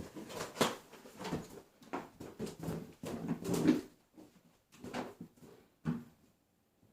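A cat pawing and clawing at a rubber balloon: an irregular run of short scrapes, rubs and knocks, the loudest about half a second and three and a half seconds in, stopping about six seconds in.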